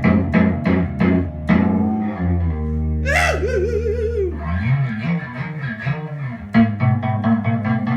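Guitar playing a blues: a run of sharp repeated chord strums, then about three seconds in a single note that bends down and wavers in pitch, then more quick strums near the end.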